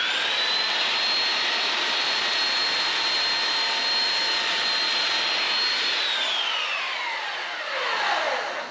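Handheld electric belt sander running with a steady high whine as it barely touches the edge of a thin lauan plywood template. About six seconds in it is switched off and winds down with a falling whine.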